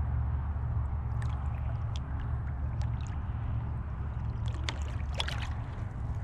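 Water trickling and splashing around a kayak over a steady low rumble, with a short burst of splashing about five seconds in.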